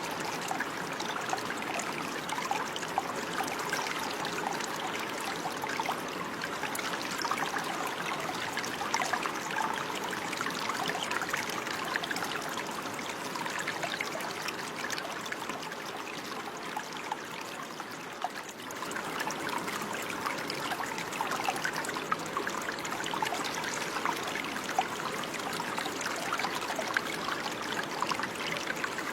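Running water flowing and trickling steadily, with a dense patter of small splashes. It eases slightly a little past halfway, then picks up again.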